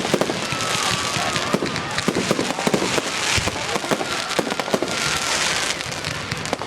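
Fireworks display: a rapid, continuous string of bangs and crackles, with stretches of hissing, crackling fizz.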